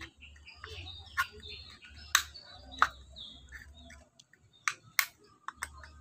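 Cutting pliers snipping down the thin aluminium wall of a soda can, about six sharp snips, the strongest in the first three seconds and a quicker run of lighter ones near the end.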